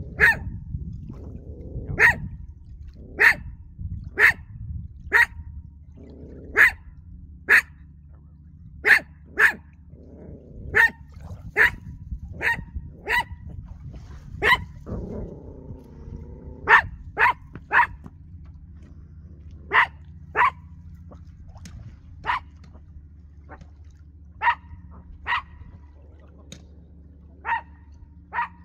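A dog barking over and over, short sharp single barks about one a second with a few brief pauses, over a low steady hum.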